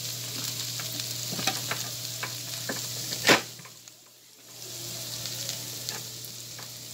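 Onions, cauliflower and peppers sizzling in hot oil in a large frying pan, with small crackles. There is one sharp clack about three seconds in, just after which the sizzle briefly drops away.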